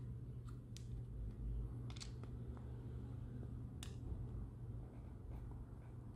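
Small screws and 3D-printed plastic parts being handled during assembly: a few sharp, light clicks and taps, most of them in the first four seconds, over a steady low hum.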